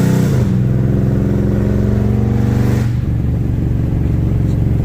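Dodge Charger exhaust being revved in place: held at high revs, falling about a quarter second in, held steady at a middle speed, then dropping back toward idle about three seconds in.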